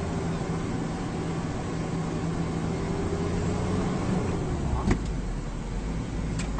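Steady engine and road noise heard from inside a car driving on a highway, with a low hum that shifts pitch around four seconds in. A sharp knock comes about five seconds in, and a fainter click near the end.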